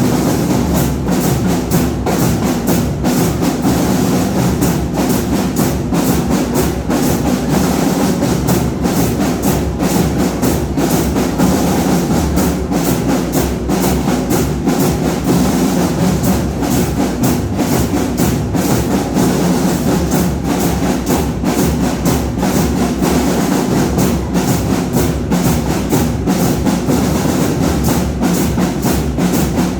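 Marching band playing, its drums and percussion beating a steady, driving rhythm.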